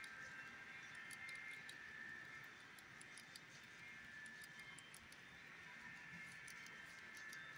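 Model railroad freight cars rolling past, their wheels making faint, irregular ticking over the rail joints, with a faint steady whine.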